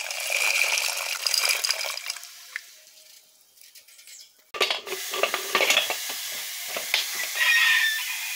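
Dried legumes poured into water in an aluminium pressure cooker, a splashing rattle for about two seconds. After a short pause come sharp metal knocks and clatter as the pot and its lid are handled, with a brief metallic ring near the end.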